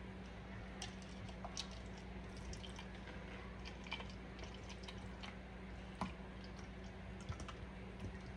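Water being poured from a bottle into a cup, faint, with scattered small ticks and drips over a steady low hum.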